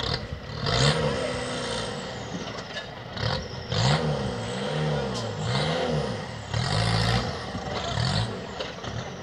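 Off-road 4x4 buggy's engine revved hard in short repeated bursts, about eight of them, each rising and falling in pitch, with a hiss on every burst, as it works its way up a steep rock face.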